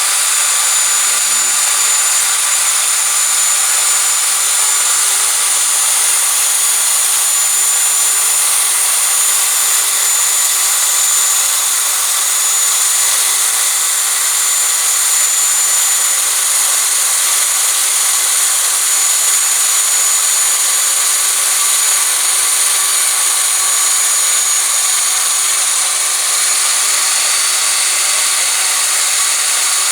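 Lathe-mounted milling cutter cutting a keyway in metal: a steady, unbroken cutting noise with a thin high whine.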